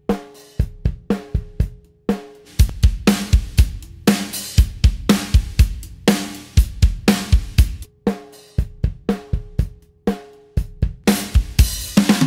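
Recorded acoustic drum kit playing a steady beat of kick, snare and cymbals, with a ringing tone under some snare hits. It plays first as raw tracks, then as a mix with the snare EQ'd and compressed for a heavy sound, restarting every couple of seconds.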